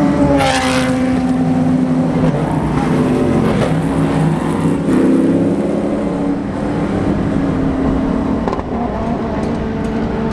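Race car engines running hard on track, their pitch dropping about half a second in and climbing again around four to five seconds in.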